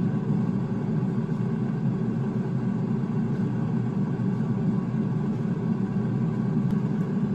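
Cosori basket air fryer running while it cooks: its convection fan gives a steady, low rush of air noise with a faint hum, unchanging throughout.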